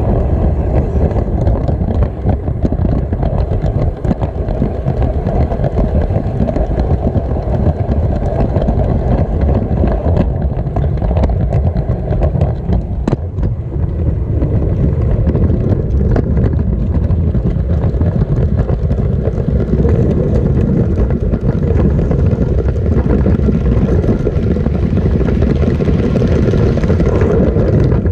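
LEGO train running on plastic track, heard from a GoPro riding on the train: a steady loud rumble and rattle of the plastic wheels and the jostled camera, with occasional sharper clicks. The sound drops away suddenly at the very end.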